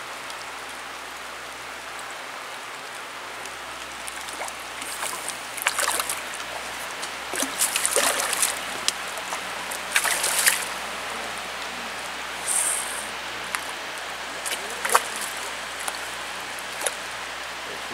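A hooked brown trout splashing at the creek's surface while being played on the line: a handful of short splashes spread over several seconds, over the steady rush of the stream.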